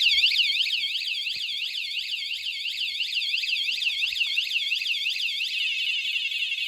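wsdcam 113 dB wireless bike alarm's siren going off after the armed bike is moved: a loud, high sweeping tone rising and falling several times a second, switching to a faster warble about five and a half seconds in.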